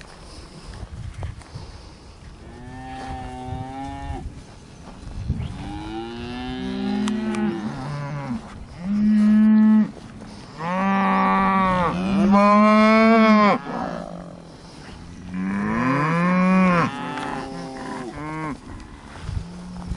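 Hereford bull bellowing: a series of about seven drawn-out moos, several sliding up and then down in pitch, loudest around the middle.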